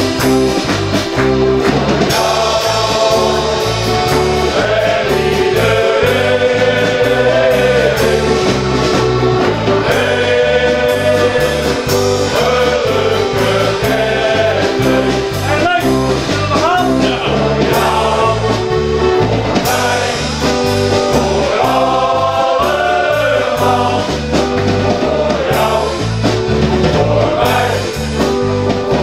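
Shanty choir singing together, men's voices with a woman's voice, over accompaniment with a steady bass beat.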